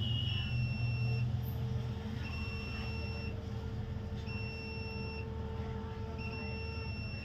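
An electronic buzzer beeping in a steady rhythm, each high-pitched beep lasting about a second and repeating every two seconds, over the low steady hum of a hot air rework station's blower heating the board.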